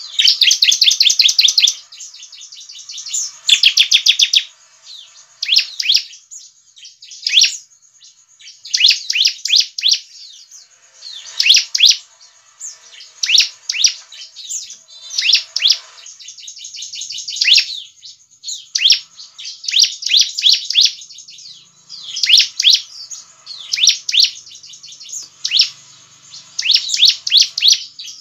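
Bar-winged prinia (ciblek) singing: a fast string of short, high chirps in a phrase every one to two seconds, each phrase up to about two seconds long, with brief pauses between.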